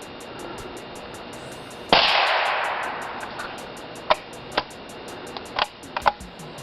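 .22 bolt-action rifle fired once about two seconds in, the report trailing off in a long echo. Several short, sharp clicks follow over the next few seconds.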